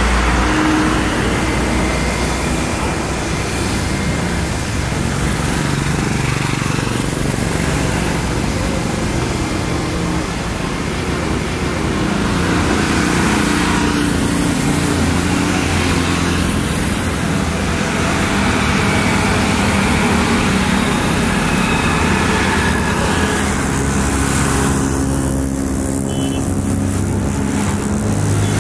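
Loud, steady engine noise, with several low drones shifting slowly in pitch under a broad rushing roar.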